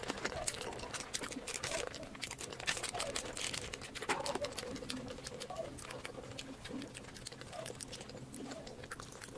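Close-miked chewing and wet mouth clicks of a person eating spiced macaroni: a fast, irregular run of small clicks and smacks.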